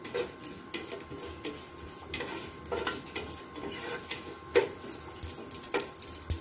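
Wooden spatula stirring fennel seeds in hot oil in a nonstick saucepan: irregular scrapes and knocks against the pan over a light sizzle.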